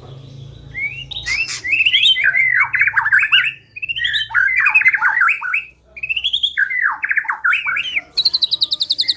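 White-rumped shama (murai batu) singing a lure song: three loud phrases of quick, rising and falling whistled and slurred notes. Near the end these give way to a fast, high, evenly repeated trill.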